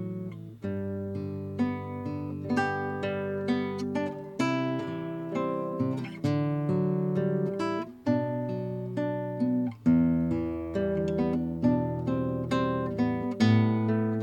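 Kodaira AST 100S nylon-string classical guitar played fingerstyle: a melody of plucked notes over a bass line, each note ringing out and fading before the next.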